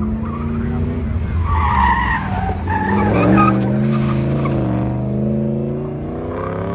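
A car running hard on an autocross course, its engine pitch rising and falling through the corners. Its tyres squeal for about two seconds, starting about a second and a half in.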